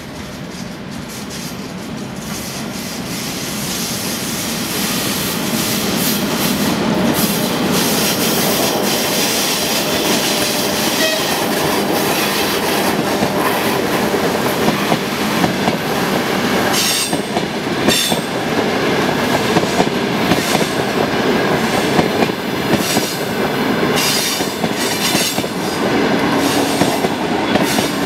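Passenger train coming up and running past close by: the rumble of wheels on rails builds over the first few seconds, then holds steady and loud, with a few sharp clicks of wheels over rail joints.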